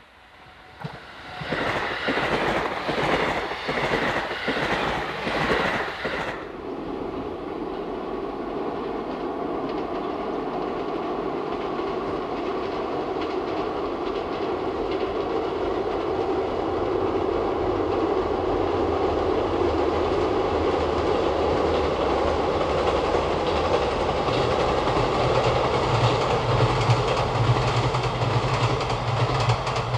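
JR Hokkaido 711 series electric train passing close by, its wheels clacking in a quick rhythm over the rail joints. About six seconds in this cuts off suddenly and gives way to the steadier, duller rumble of a 711 series train crossing a steel girder bridge, which slowly grows louder, with a low steady hum near the end.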